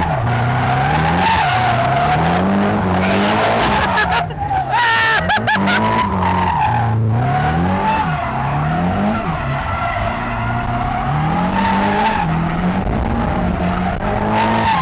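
Drift car engine revving hard, its pitch climbing and dropping over and over as the driver works the throttle through a drift, with tyres squealing, heard from inside the cabin.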